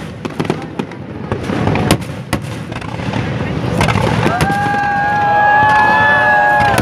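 Fireworks display: aerial shells bursting with sharp bangs. About four seconds in, spectators' voices rise in a long, slowly falling 'ooh' over the bursts.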